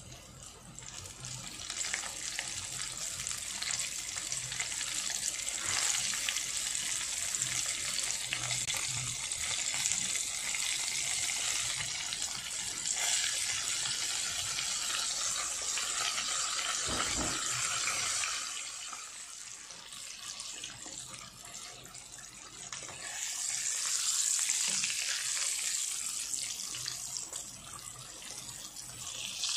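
Egg-and-flour-battered chicken pieces deep-frying in hot oil: a steady, loud sizzle that builds up over the first couple of seconds as pieces are dropped in. It fades somewhat about two-thirds of the way through, then rises again.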